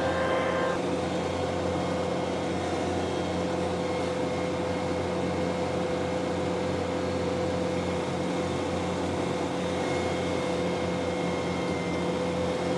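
Ventrac 4520 compact tractor running with its Tough Cut mower engaged, cutting tall grass and cattails at a drained pond's edge: a steady engine drone with a held, even whine over it.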